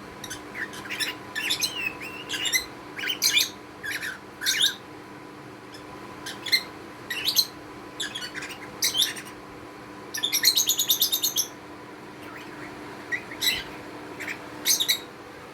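Caged budgerigar chirping in short, high calls, with a fast rattling trill of about a dozen notes about two-thirds of the way through, over a steady faint hum.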